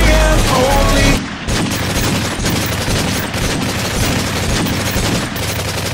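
Rapid gunfire: a long, fast run of shots like an automatic weapon, starting about a second in.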